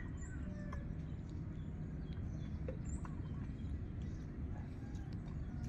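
Open-air field ambience: a steady low rumble with a few faint, short bird chirps, about a second apart near the start and again around three seconds in.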